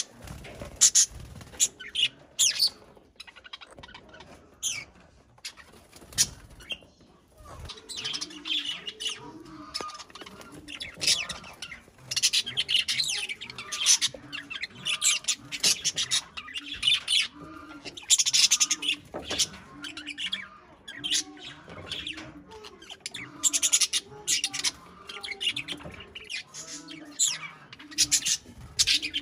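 Budgerigars chattering in many quick, sharp chirps in bursts, the agitated calls of birds fighting.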